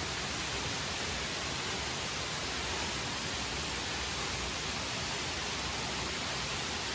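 Steady rushing of water from a mountain stream or waterfall, an even, unbroken hiss.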